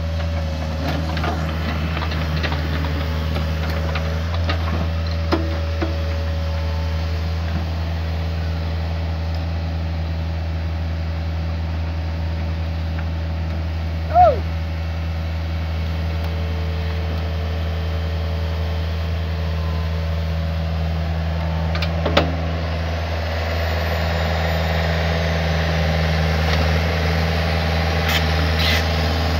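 Hitachi ZX48U mini excavator's diesel engine running steadily close by, growing a little louder in the last few seconds. A short whistle-like tone slides up and down about halfway through, and a sharp knock sounds a few seconds before the end.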